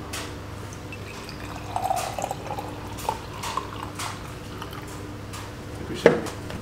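Thick fresh juice poured from a jug into a glass tumbler, the pouring loudest about two seconds in, with a few light clinks of glass. A sharp knock near the end is the loudest sound.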